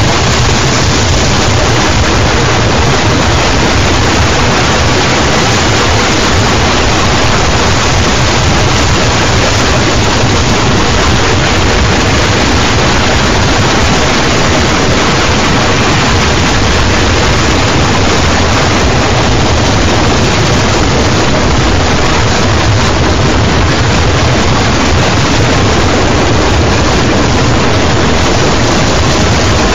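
Harsh noise music: a loud, unbroken wall of static-like noise with a low hum beneath it, unchanging.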